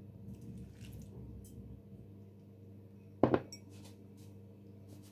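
Kitchen dishes being handled: soft clatter and light clicks, then one sharp clink of crockery about three seconds in.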